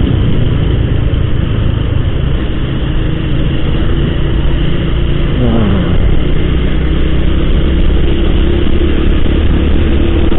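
Honda scooter's engine running while being ridden along a road, with rushing wind on the microphone. About five and a half seconds in the engine note shifts as the throttle changes, then holds steady.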